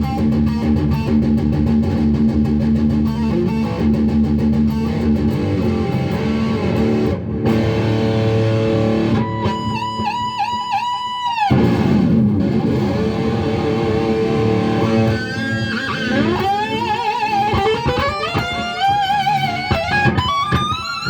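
1985 Kramer Baretta electric guitar played through an amp: riffing, then a held high note that wavers and cuts off suddenly. After that come repeated whammy-bar dives and rising swoops. The guitar returns to pitch afterwards, a sign that the neck is now firmly bolted on.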